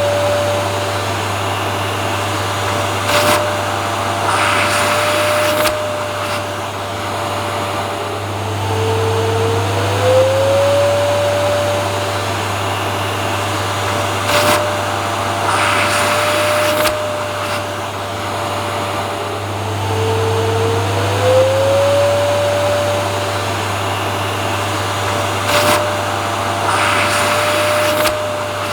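Vacuum cleaner running steadily, a dense rushing noise over a low hum. Its motor whine rises in pitch and settles, with short rattling bursts, in a cycle that repeats about every eleven seconds.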